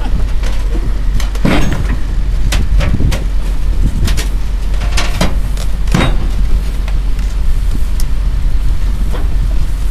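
Caterpillar 325C excavator's diesel engine running with a steady low rumble as its steel tracks crawl onto a lowboy trailer deck, with sharp clanks and creaks from the tracks at irregular intervals.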